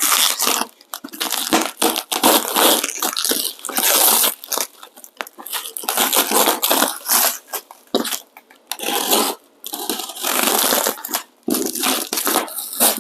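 A shipping package being torn open by hand: irregular bursts of ripping and crinkling packaging, stopping and starting.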